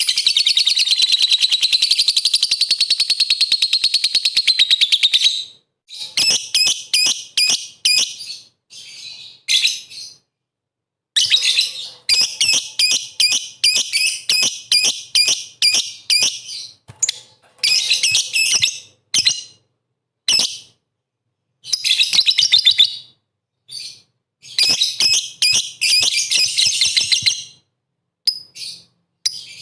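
Lovebird in full song (gacor), giving a fast, shrill chattering trill. It is unbroken for about the first five seconds, then comes in shorter bursts of rapid chirps with brief silences between them.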